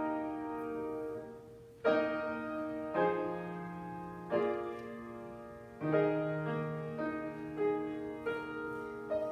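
Piano playing slow chords, each struck and left to ring and fade before the next, about one new chord every second or so.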